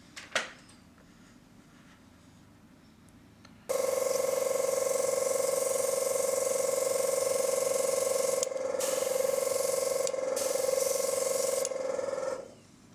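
Airbrush spraying with its compressor running: a steady hiss of air over a steady tone. The hiss breaks off briefly twice. A short knock comes just before it starts.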